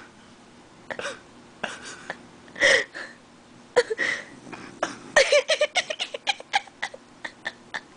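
A sleeping puggle snoring in short, irregular snorts.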